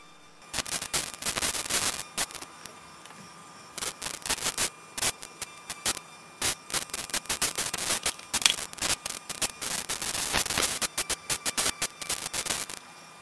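Irregular bursts of crackling static, electrical interference on the audio, starting about half a second in. The crackling comes and goes in dense clusters with short calmer gaps, over a faint steady high tone.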